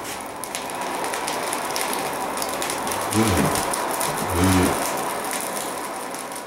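Charcoal fire burning in a forge's fire pot, crackling and popping steadily as sparks shoot up. Twice, around three and four and a half seconds in, a short low-pitched groan sounds over it, and the whole sound begins to fade near the end.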